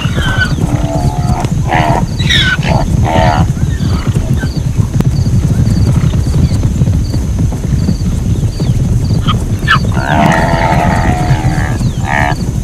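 Zebras calling: a series of short barking brays in the first few seconds and a longer call about ten seconds in, over a steady low rumble.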